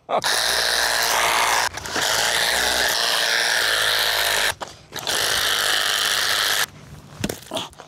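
Handheld power tool run in three long bursts, its pitch wavering slightly under load as it works into the housing of an RV plug adapter to take it apart, followed by a few knocks.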